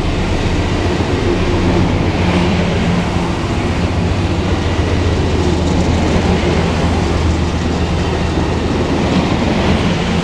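Amtrak passenger coaches rolling past close by: a steady rumble of wheels on rail with a low hum underneath.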